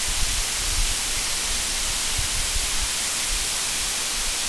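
Tall waterfall crashing down a rock face, a steady even rushing hiss, with an uneven low rumble underneath.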